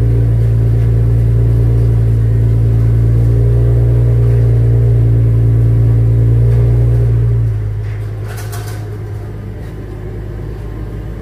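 Lexus IS sedan's engine idling after a remote start: a steady low drone that drops and becomes quieter about seven and a half seconds in.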